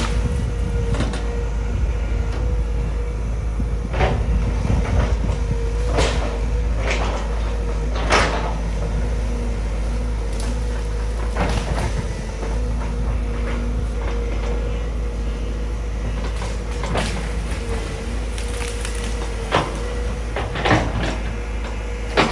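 Sumitomo SH200 hydraulic excavator at work: its diesel engine runs steadily under a constant whine, with about ten irregular sharp metallic clanks and knocks.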